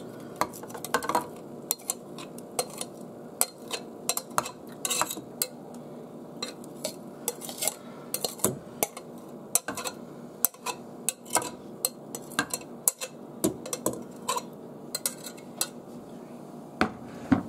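A metal slotted spatula scraping and clinking against a glass mixing bowl, many quick irregular taps and scrapes, as a thick egg-and-cheese mixture is scraped out of it.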